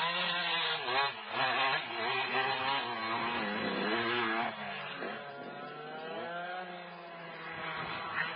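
Motocross bike engine revving, its pitch swinging up and down, then a quieter, gradual climb in pitch from about five seconds in as it accelerates again.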